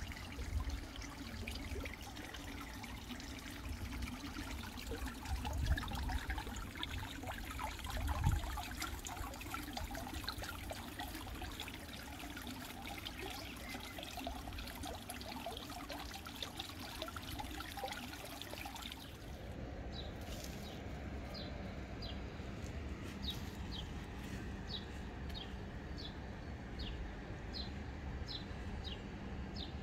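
Running pool water trickling and splashing steadily. About two-thirds of the way through this gives way to a quieter outdoor background, where a bird repeats a short, high chirp over and over.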